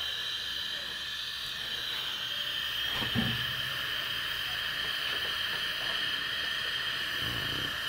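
Homemade diesel stove burner running at full flame, a steady hiss from its row of blue flame jets, with a brief thump about three seconds in.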